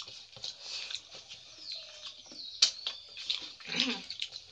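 Close-up eating sounds: wet chewing and lip-smacking while hands mix rice and curry on steel plates, with a sharp click about two and a half seconds in.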